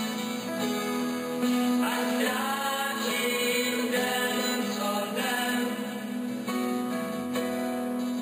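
Church pipe organ playing sustained chords, with voices singing a hymn along with it.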